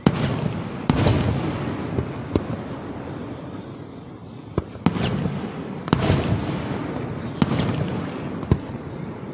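Aerial fireworks display: about ten sharp bangs of shells bursting at irregular intervals, each trailing off in a rumbling echo.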